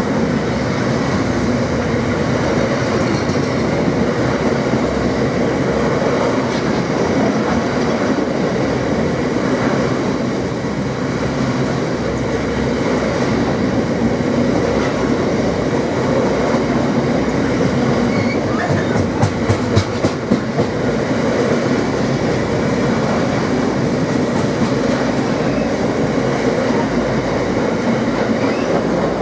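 Freight train of bogie cement tank wagons rolling past at close range: a steady rumble of wheels on rail with clickety-clack over the rail joints. A cluster of sharp, loud knocks comes about two-thirds of the way through.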